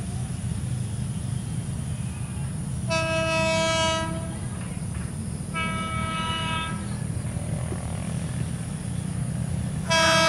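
A JR 205 series electric commuter train sounds its one-note horn three times as it approaches: a blast of about a second, a fainter, echoing second blast, and a louder third one starting just before the end. A steady low rumble from the oncoming train runs underneath.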